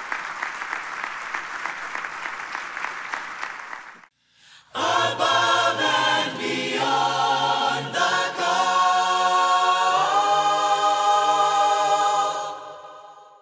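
Audience applause that fades out about four seconds in, then, after a moment of silence, a choir singing, with a long held chord that fades away near the end.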